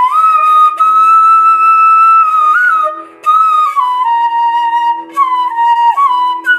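Small bamboo bansuri flute playing a slow melody: one long held note for about three seconds, then a run of shorter notes stepping downward. A steady drone sounds beneath it.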